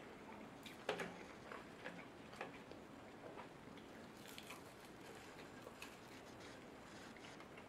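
Faint, scattered wet clicks and smacks of someone eating food held in the fingers, biting and chewing.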